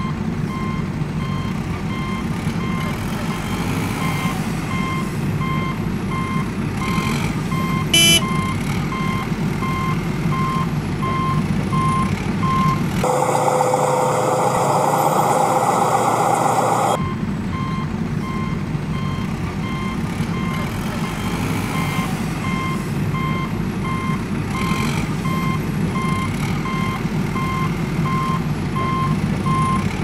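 A truck's reversing beeper sounds steadily at about two beeps a second over a low, steady truck-engine rumble. It breaks off for a few seconds around the middle, where a louder, rougher engine sound takes over, then resumes.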